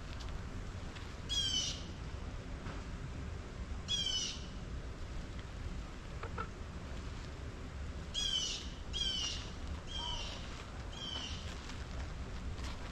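A crow cawing six times: two single caws a few seconds apart, then four in a row about a second apart, over a steady low outdoor rumble.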